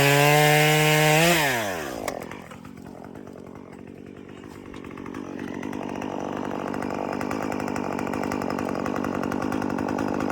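Two-stroke chainsaw held at full throttle, then let off about one and a half seconds in, its pitch falling away to a fast, steady idle that slowly grows louder.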